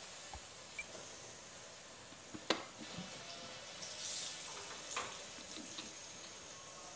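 Shallots, curry leaves and dried red chillies sizzling gently in oil in a pan, with a sharp metal clink of a steel ladle against the pan about two and a half seconds in and a lighter tap near five seconds.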